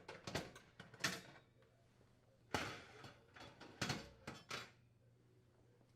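Oven doors and metal racks of a KitchenAid double oven electric range being handled as the racks are taken out: a few clusters of faint clanks and knocks, the last about four seconds in.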